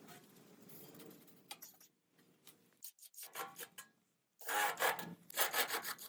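Rough scraping and rasping strokes, as of a tool worked against a rough surface, in short irregular bursts that are loudest near the end and broken by abrupt gaps of silence.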